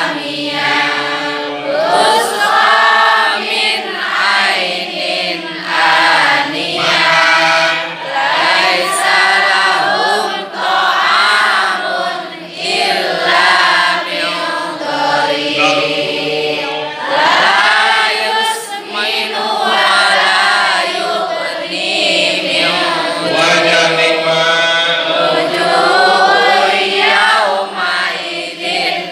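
A large group of women chanting Quran verses together in unison, in a sing-song memorization chant that goes on without a break.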